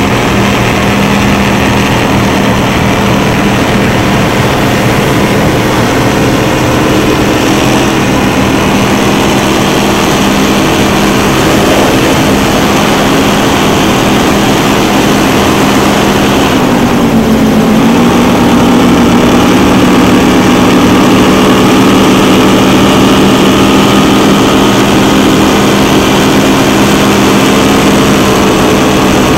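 Donzi 43 ZR and 38 ZR powerboat engines running hard at speed, a loud steady drone over the rush of water and spray. About halfway through, the engine pitch dips briefly and then comes back up.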